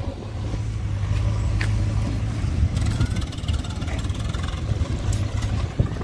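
JCB 3DX backhoe loader's diesel engine running steadily as the machine drives, a low even drone; the sound changes near the end.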